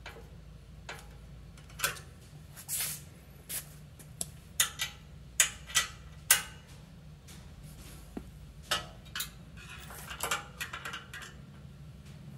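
Irregular sharp metal clicks and clinks of a small wrench and nuts working on the bolts that hold a sprocket to a bicycle's rear wheel hub, with a quick run of clinks near the end.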